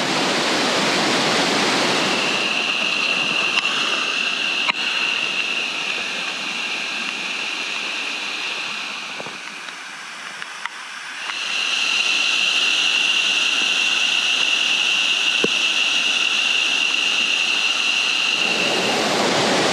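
Rushing water of a muddy waterfall and stream in flood after heavy rain: a steady noise that drops for a couple of seconds about halfway through. A steady high-pitched tone sounds over most of it and stops during that drop.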